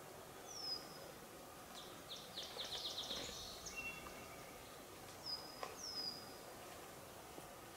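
Songbirds singing faintly in a forest: a few short, high, falling whistles and, about two seconds in, a rapid trill of chirps lasting over a second, over a faint steady background hiss.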